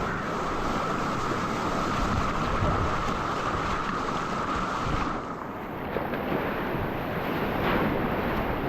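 Rushing whitewater of a flooded river at about 3000 cfs running around a kayak, with wind buffeting the microphone. A steady high whine runs through the first five seconds and then stops.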